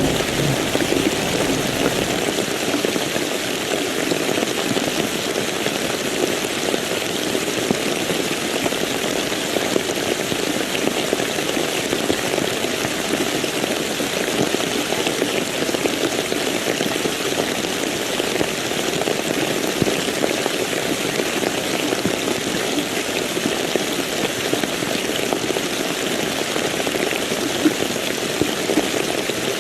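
Steady rain falling, an even hiss without breaks. The tail of a thunder rumble dies away in the first couple of seconds.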